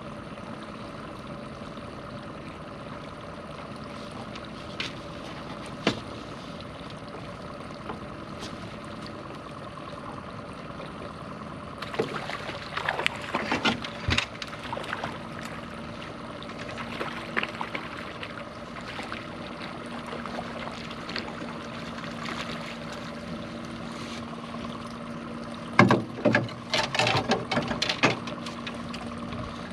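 Steady hum of an outboard motor running at trolling speed. Knocks and rattles of fishing gear being handled on the aluminium boat about twelve seconds in and again near the end, louder than the motor.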